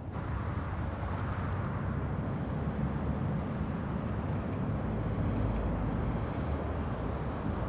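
Steady outdoor background rumble with no distinct events, strongest in the deep low end.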